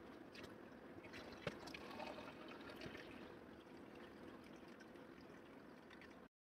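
Faint trickle of water poured in a thin stream into a partly filled aquarium, the flow landing in a plastic jug set in the water so the soil substrate is not stirred up. A single sharp tap about a second and a half in, and the sound cuts off suddenly near the end.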